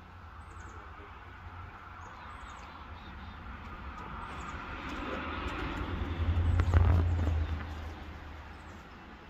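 A vehicle passing by, building up slowly, loudest about seven seconds in, then fading away. Small birds chirp now and then.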